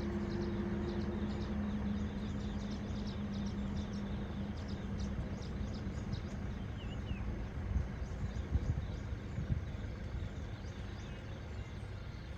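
Small birds chirping in many quick, high chirps, thick for the first half and thinning out later, over a steady low rumble of road traffic. A low engine hum fades away in the first few seconds.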